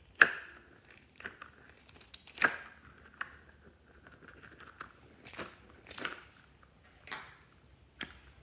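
Pink slime being stretched and pulled by hand, giving sticky pops and crackles: a loud pop about a quarter second in, another near two and a half seconds, then a run of softer crackles and a sharp click near the end.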